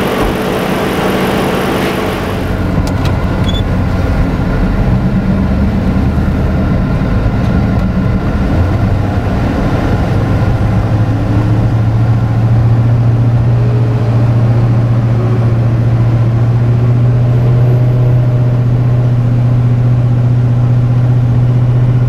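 A 2011 Chrysler 300C's 5.7-litre Hemi V8, which has a misfire on cylinder 5, running steadily. About nine seconds in it is power braked (in gear against the brakes with throttle applied), and the engine speed rises and then holds at a higher, steady hum under load.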